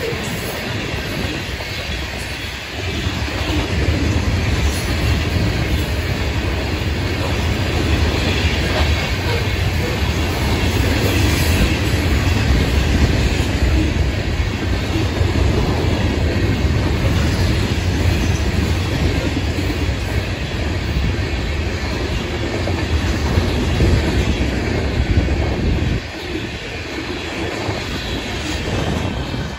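Freight cars of a Florida East Coast Railway rock train rolling past: the steady rumble of steel wheels on rail. It drops off sharply near the end as the last cars go by.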